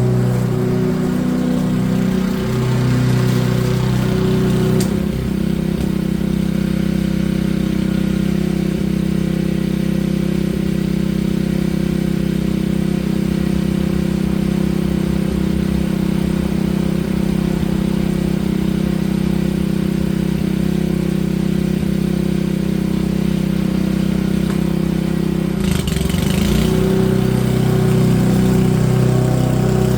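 Small petrol engine of a garden power tool running steadily at working speed. Its note shifts about five seconds in and again near the end.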